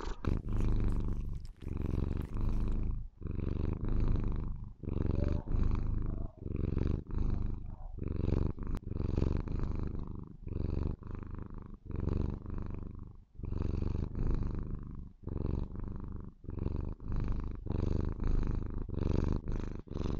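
A Maine Coon kitten purring loudly, a low rumble that swells and breaks with each breath in and out, about once a second.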